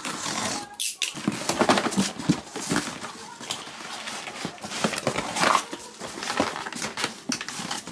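Cardboard shipping box being opened by hand: flaps pulled back and cardboard scraping and rustling, with irregular knocks.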